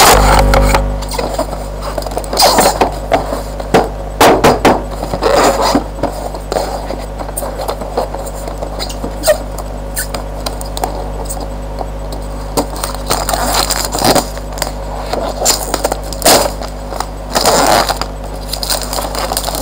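Cardboard headphone box and its plastic wrapping handled and rubbed close to the microphone: irregular rustles, scrapes and small knocks over a steady low hum.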